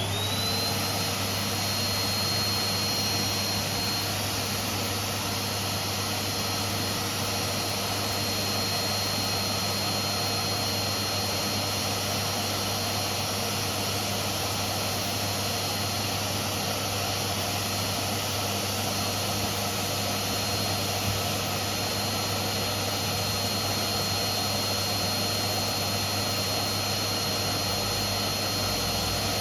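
Vacuum cleaner running: its motor spins up right at the start, then holds a steady high whine over a loud, even rush of air.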